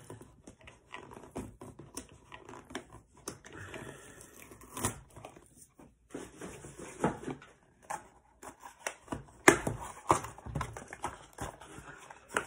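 Packaging being opened by hand: sticky tape peeled and a small cardboard box pulled open, with irregular rustling, tearing and clicking. A few sharper knocks stand out, the loudest a little past halfway.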